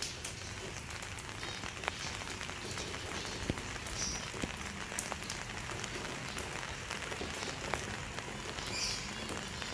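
Steady rain falling, with scattered sharp ticks of drops striking surfaces.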